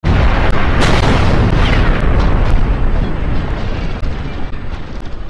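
A loud, deep boom that hits suddenly and dies away slowly over several seconds, heaviest in the bass.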